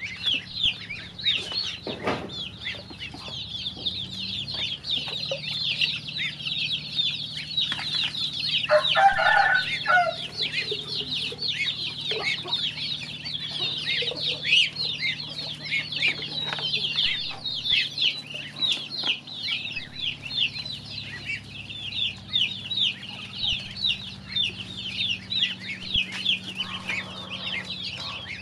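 A flock of chicks and ducklings peeping without pause in many quick, high chirps. One louder, lower call from a bird stands out about nine seconds in.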